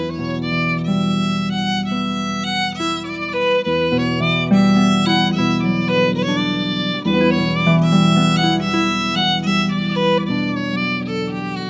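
Violin playing a fast-moving melody of short bowed notes over harp accompaniment.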